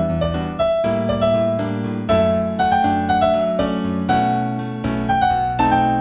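Slow instrumental new-age piece in D major on a piano-like keyboard voice, made in the HumOn composing app. A melody moves up and down over held chords, with a new note about every half second.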